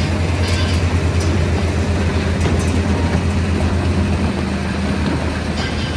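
Heavy engine of potato-harvest machinery running steadily with a low drone, with a few light clatters over it.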